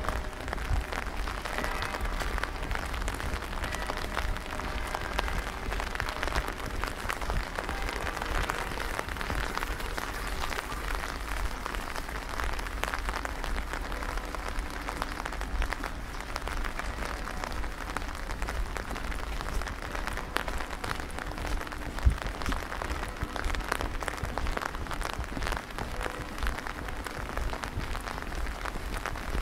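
Steady rain falling and pattering in many small drops, over a constant low rumble.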